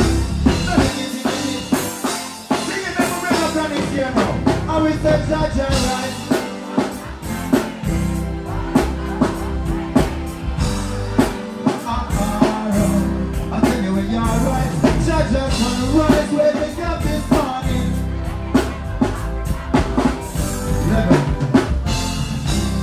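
Live reggae music with a steady drum-kit beat and a man singing into a microphone, played loud through a stage sound system.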